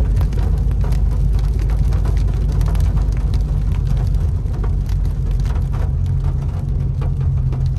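Heavy rain drumming on a car's roof and windshield, heard from inside the moving car as a dense patter of drops over the steady low rumble of the car on the road.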